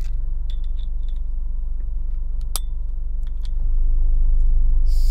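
A metal key clicking and scraping against the crimped crown cap of a glass soda bottle as it is pried loose. There are a few light clicks, a sharp click about two and a half seconds in, and a short, louder burst near the end as the seal gives and the gas escapes.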